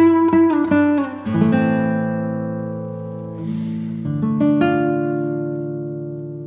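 Background music on acoustic guitar: a quick run of plucked notes, then sustained chords left to ring and fade.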